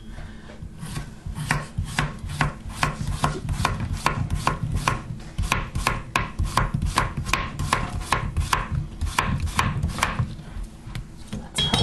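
Chef's knife slicing an English cucumber into rounds on a plastic cutting board: a steady run of sharp knife taps on the board, about three to four a second, starting about a second in.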